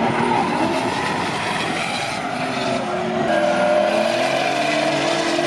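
Two drift cars sliding through a corner in tandem, their engines revving high over the hiss and squeal of tyres spinning sideways on the tarmac.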